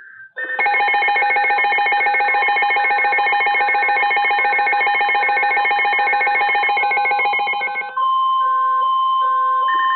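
Emergency Alert System attention signal before a severe thunderstorm warning: a loud steady two-tone alarm with a short beep repeating over it. About eight seconds in it switches to a single steady tone, the NOAA Weather Radio warning tone.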